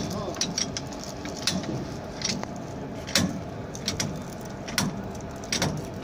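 Irregular short metallic clicks and knocks as a worker handles the coupling gear between a locomotive and a coach, over a steady machinery hum.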